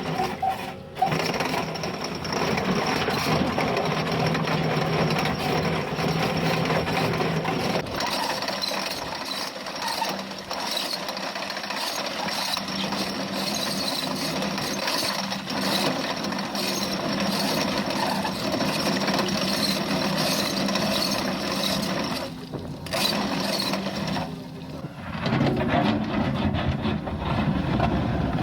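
Excavator-mounted KEMROC EK chain cutter cutting into stone: a steady, dense mechanical grinding with a low steady hum under it, briefly dropping away twice near the end.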